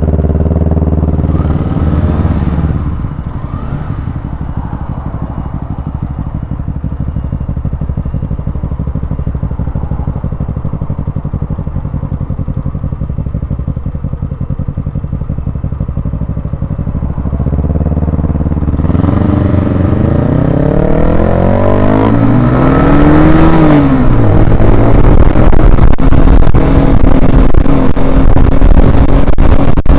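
Honda CBR125R's single-cylinder four-stroke engine under way: the engine note falls in the first seconds and runs steady and lower for a while. From about 18 seconds in it accelerates, the pitch climbing and dropping back with gear changes, then holds a steady higher note near the end.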